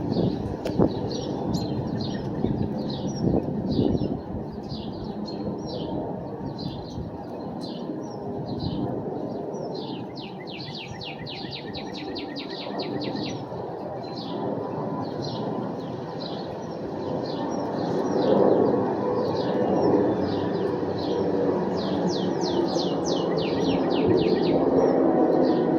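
Small birds chirping repeatedly, with two quick rapid runs of chirps, over a steady low background rumble that gets louder in the second half.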